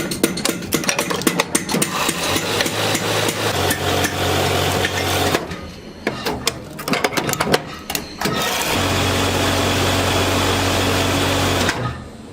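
Workshop machinery: rapid metal tapping and clattering over a motor hum, then a machine running steadily for about three seconds before it stops abruptly near the end.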